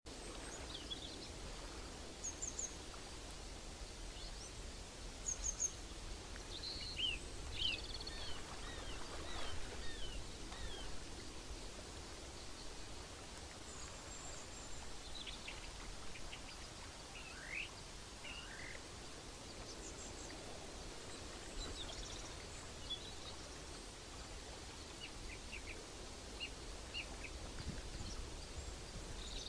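Outdoor ambience: a steady low rumble with scattered short bird chirps and calls, busiest between about seven and eleven seconds in.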